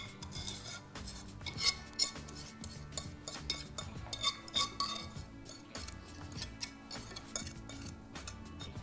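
Metal whisk scraping and clinking against a nonstick pan as thick batter is scraped out into a glass baking dish, with a few sharp taps among the scrapes. Soft background music underneath.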